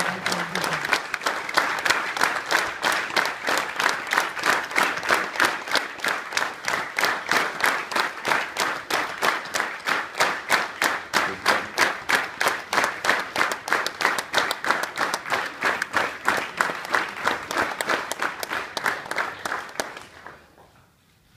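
Large audience clapping in unison, a steady rhythm of about four claps a second, dying away near the end.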